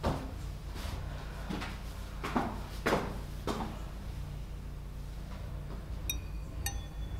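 Footsteps on a staircase, about one step every half second, stopping roughly three and a half seconds in. Near the end a few high, bell-like chiming notes ring out.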